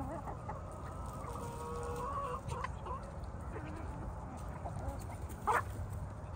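Chickens clucking in a flock, with one long drawn-out call from about half a second in to about two and a half seconds, and a short sharp call near the end.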